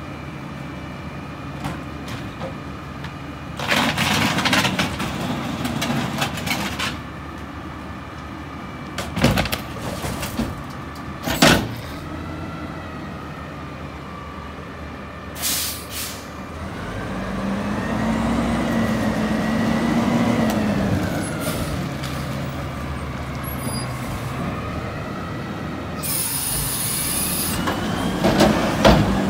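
Front-load garbage truck with a carry can, its diesel engine idling, cut by several short air hisses and a couple of sharp clanks. The engine revs up and holds for a few seconds in the middle, then settles. A long air hiss comes near the end.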